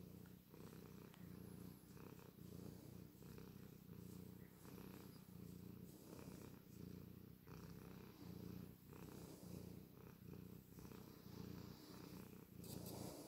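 Domestic cat purring faintly and contentedly as its head is scratched. The low purr swells and dips about once a second with each breath in and out.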